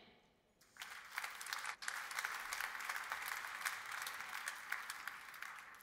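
Audience applauding, many hands clapping at once. It starts just under a second in, holds steady, and fades out near the end.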